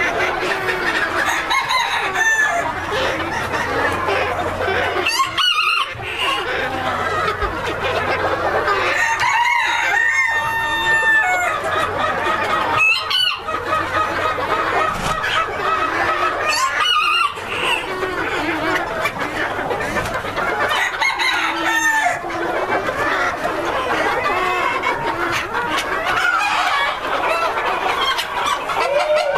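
A flock of Mille Fleur Old English Game bantam chickens clucking and calling without a break, with bantam roosters crowing now and then over the hens' chatter.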